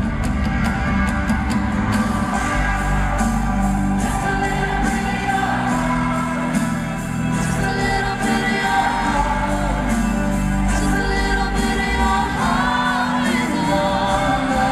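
A pop song: one voice singing a sustained, gliding melody over instrumental accompaniment.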